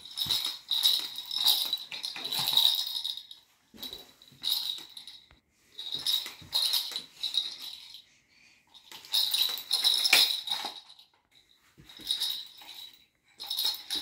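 Plastic push-along bird toy rattling and clicking in short bursts as it is rolled, its wing mechanism clattering, with brief pauses between pushes.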